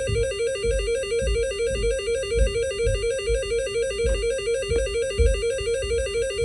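Electronic chiptune-style music: a fast buzzy two-note figure repeats over a steady low beat of about one thump every 0.6 seconds, starting suddenly.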